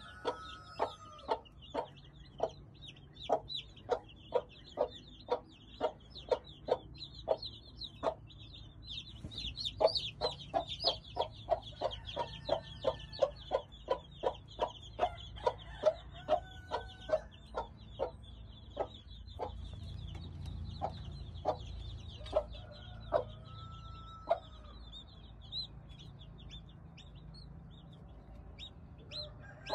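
Mother hen clucking over her young chicks: short clucks repeating about two or three a second, the steady brooding cluck that keeps chicks close. The clucks thin out in the last third. The chicks peep continuously, high-pitched, underneath.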